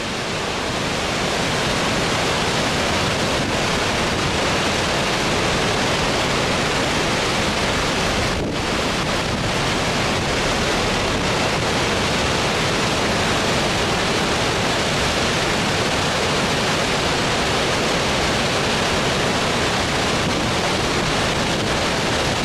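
Steady rushing of a swollen, fast-flowing river in flood, with turbulent whitewater churning along the bank.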